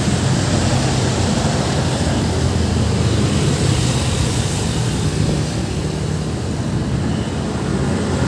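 Road traffic with a motor vehicle's engine running close by: a steady low drone with no horn sounding.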